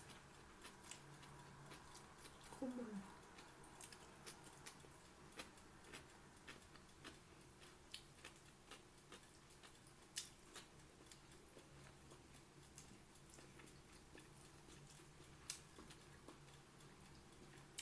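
A person eating close to the microphone: quiet chewing with scattered soft clicks and smacks, and a brief falling tone about two and a half seconds in.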